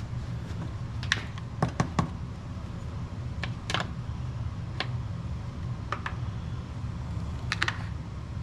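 About ten short, irregular clicks and taps from small parts being handled, over a steady low hum.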